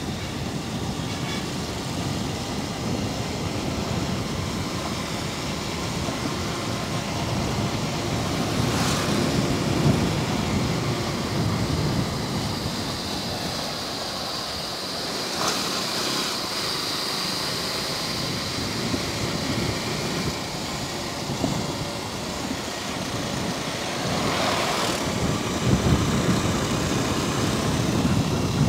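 Motorcycle under way: steady engine drone mixed with road and wind noise, with a few brief surges as other traffic goes by.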